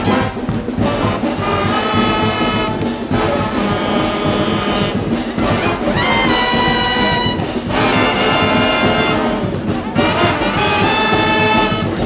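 Live street brass band playing loudly: saxophones, trombones, trumpets and sousaphones together, with long held chords about halfway through and again near the end.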